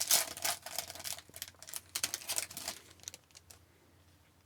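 A hockey card pack wrapper being torn open and crinkled by hand: a run of crackling, rustling strokes that fades out about three seconds in.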